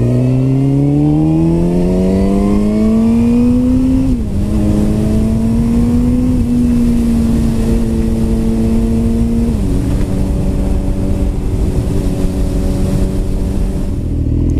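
Suzuki GSX-R1000 inline-four sportbike engine pulling hard, its pitch rising steadily for about four seconds until an upshift drops it. It then runs at a steady pitch, drops once more about ten seconds in, and carries on evenly, over a steady low rush of wind.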